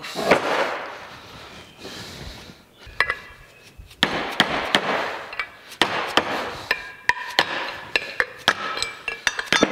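Metal tapping, clicking and knocking as a hex key works inside a cast-iron three-jaw lathe chuck to free its scroll, with a few short metallic rings. A rag is rubbed over the chuck near the start.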